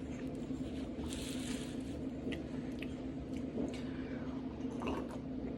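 Close-miked eating: chewing with small wet mouth clicks and squishes, scattered irregularly, over a steady low hum.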